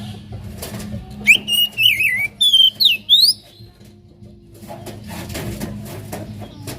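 Oriental magpie-robin singing a burst of loud, clear whistled phrases with sliding notes, starting about a second in and lasting about two seconds. A steady low hum runs underneath, and scratchy, clicking sounds take over near the end.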